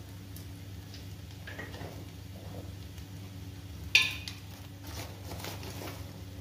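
A single sharp clink of a kitchen utensil about four seconds in, over a steady low hum and faint handling rustles.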